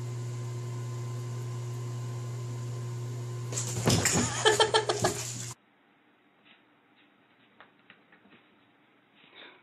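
A steady low hum, then about three and a half seconds in a cat falls into a bubble-filled bathtub: a loud burst of splashing and thrashing in the water for about two seconds, cut off abruptly. Near silence with a few faint taps follows.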